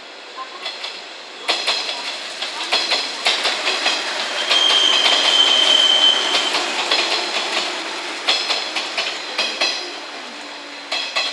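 JNR 113 series electric train rolling past over rail joints and points, its wheels clicking in quick groups as each car's bogies go over. A steady high squeal from the running gear lasts about two seconds in the middle.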